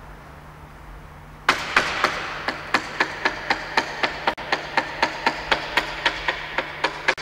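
Hammer blows on a chisel, a quick steady rhythm of about four strikes a second starting about one and a half seconds in, as a mural panel is chiselled loose from a concrete-block wall.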